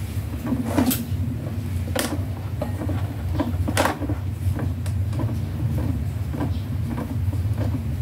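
Hand screwdriver turning screws into a washing machine motor's mounting: scattered small clicks and knocks of the tool on metal and plastic, with three sharper clicks about one, two and nearly four seconds in, over a steady low hum.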